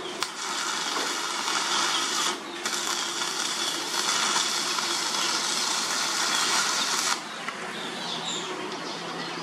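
Arc welding with a stick electrode on the steel drive shaft: a steady crackling hiss that breaks off briefly a little over two seconds in, starts again, and cuts off suddenly about seven seconds in.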